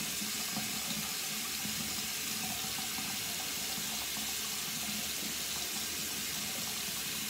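Sink faucet running hot water in a steady, even rush.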